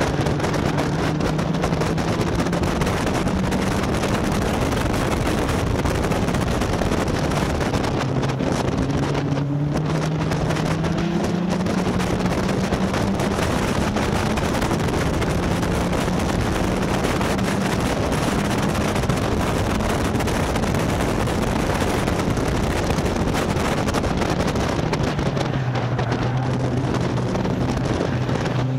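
Caterham Seven race car's four-cylinder engine running hard, with heavy wind noise on the roll-bar microphone. The engine note climbs over the first ten seconds, breaks briefly about nine and a half seconds in as a gear changes, holds steady, then drops in pitch near the end as the car slows.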